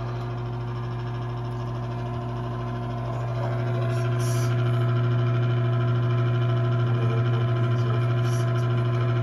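Draft inducer motor of an Intertherm mobile home furnace running with a steady hum, louder from about three seconds in.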